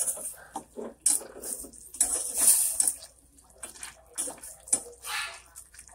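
Squid adobo being stirred in a stainless steel pot: irregular wet sloshing of the sauce and scraping and clinking of the utensil against the pot, loudest for about a second from two seconds in.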